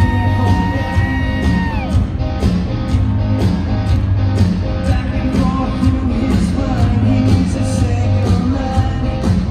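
Hard rock band playing live in a large hall: male lead vocals over bass guitar and a steady drum beat. A long held sung note falls off about two seconds in, then the singing and drums carry on.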